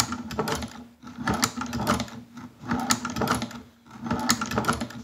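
Hand-cranked leather shoe patcher sewing machine stitching through two layers of thick veg-tan leather. It makes about four slow stitch cycles, each a clatter of mechanical clicks, roughly one every second and a half. The click as the needle comes back up is the bobbin thread popping back up through the leather, the sign of a properly formed stitch in hard leather.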